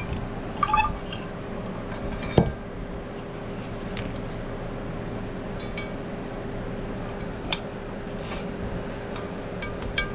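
Metal tools and vise parts clinking and tapping as the vise is taken apart, with one sharp metal knock about two and a half seconds in and a few lighter clinks later, over a steady hum.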